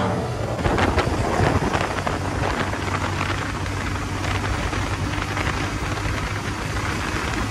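Wind rushing over the microphone, with a vehicle engine running steadily underneath.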